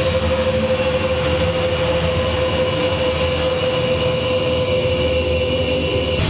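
Dance-performance soundtrack of dense rumbling noise with one steady tone held over it; the tone cuts off about six seconds in.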